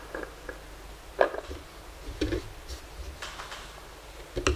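Light knocks and clicks of a nail-art practice tip on its plastic stick and tools being handled on a table, about one a second, the loudest near the end.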